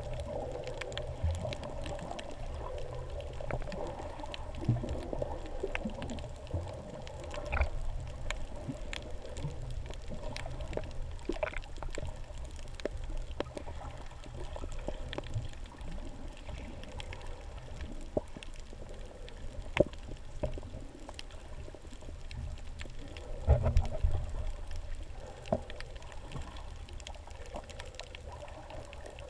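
Muffled underwater sound heard through a submerged camera: a steady low water rumble with a faint hum and scattered small clicks and crackles. A few louder knocks come late on.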